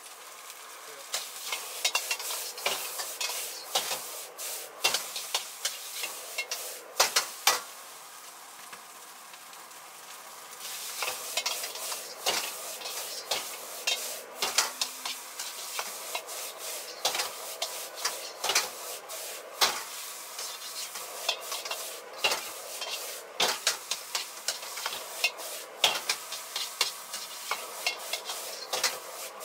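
A steel ladle clanks and scrapes against a wok in quick, irregular strikes as fried rice is stir-fried and tossed over a high gas flame, under a steady sizzling hiss.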